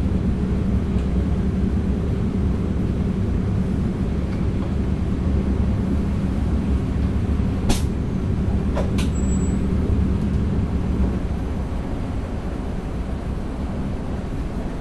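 Steady low running noise heard inside the driver's cab of an NS DDZ double-deck electric train under way, with a steady hum that fades about eleven seconds in. Two sharp clicks come a little over a second apart about halfway through.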